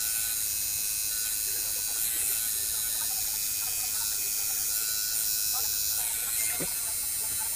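Coil tattoo machine with brass and iron coils buzzing steadily as its needle works ink into the skin of an upper arm.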